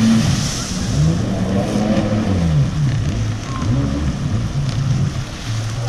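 Jet ski engine revving up and easing off as the craft turns on the water, its pitch rising and falling several times, over the hiss of water.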